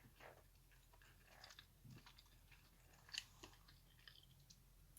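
Faint chewing and small mouth clicks of someone eating, a few soft crunchy clicks scattered through, the loudest about three seconds in.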